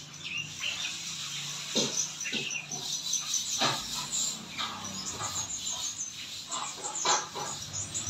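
Chestnut-capped thrush (anis kembang) singing loudly: a continuous, varied run of quick high notes, chips and short sweeps.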